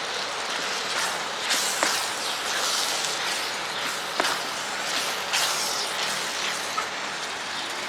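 Masala and potatoes sizzling in a cooking pot as they fry, with a few sharp clicks along the way.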